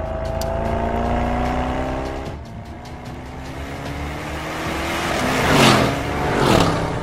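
Mercedes-AMG GT 63 S's twin-turbo V8 accelerating hard, its pitch rising through a gear with an upshift about two and a half seconds in, then climbing again. Near the end the car sweeps past loudly, its pitch dropping.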